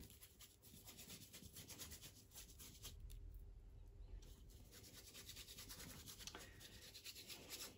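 Faint scratchy rubbing of a bristle paintbrush scrubbing oil paint onto paper in quick repeated strokes.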